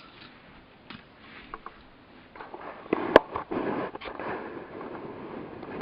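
Handling noise from plastic model kit parts: a few light ticks, then about three seconds of crackly rustling with one sharp click in the middle and another click at the end.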